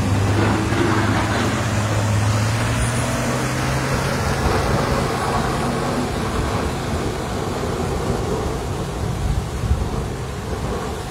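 A heavy utility truck's engine running steadily as it drives through floodwater, its low tone dying away about halfway through as it moves off. Under it, a continuous rush of muddy floodwater flows across the road.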